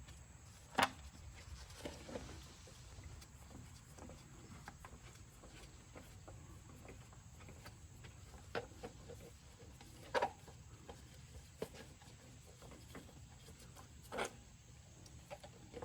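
Faint handling noises from work on the fuel filter: scattered clicks and knocks of tools and parts. The sharpest come about a second in, around ten seconds and near fourteen seconds, over a low steady hum.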